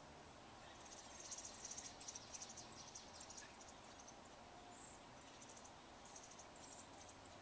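Faint, rapid, high-pitched chirping in short bursts: begging calls of American robin young as the parent arrives with food and feeds them.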